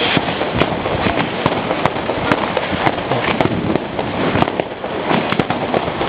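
Fireworks going off in a dense, continuous barrage: many sharp bangs and crackles a second, irregular, over a steady noisy rumble.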